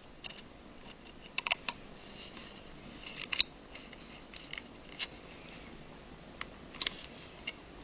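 Scattered small sharp clicks and taps of a small screwdriver and metal parts as a single tiny screw is placed and driven into an iPhone 5's casing, the loudest clicks a little over three seconds in and near the end.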